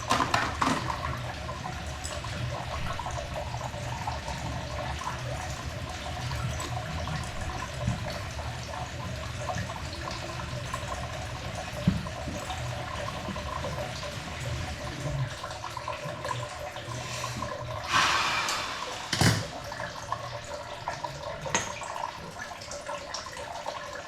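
Water running steadily from a Moen faucet into a sink as the newly installed 1224B cartridge is tested, with a louder surge about eighteen seconds in.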